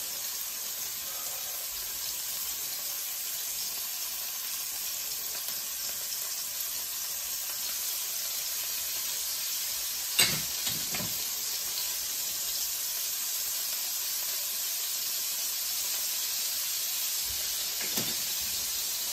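Sea scallops searing in hot olive oil and ghee in a cast-iron skillet: a steady sizzle. A sharp knock comes about ten seconds in, and a lighter one near the end.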